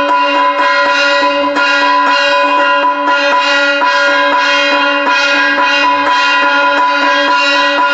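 Puja hand bell rung rapidly and continuously during aarti, a steady metallic ringing with quick even strokes.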